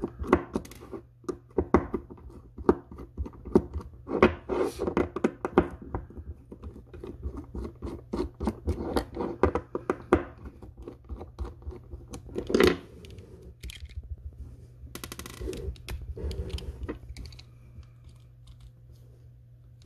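Precision Torx screwdriver bit clicking and scraping as it backs tiny screws out of a metal cigar cutter's clamshell, with irregular clicks and knocks of the tool and parts on a wooden table; one sharper knock comes about twelve seconds in.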